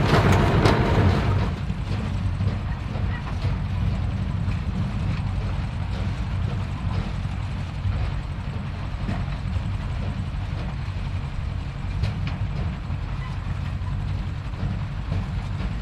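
Tractor engine running steadily as a low drone, louder and noisier for the first second or so and then level, with a few light knocks.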